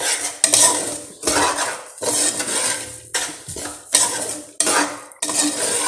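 Metal spoon scraping and stirring dry-roasting panjiri (ground lentils, semolina and sugar) against the bottom and sides of a metal pot, a rhythmic scrape roughly every half second.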